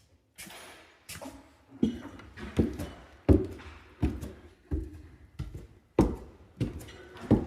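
Footsteps climbing stairs: a steady series of heavy thuds, about one step every 0.7 seconds, starting about two seconds in.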